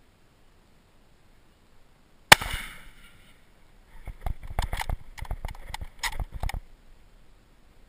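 A single loud gunshot from the hunter's scoped firearm, a sharp crack with a short echoing tail about two seconds in. It is followed about two seconds later by a run of close rustling and knocking against the microphone.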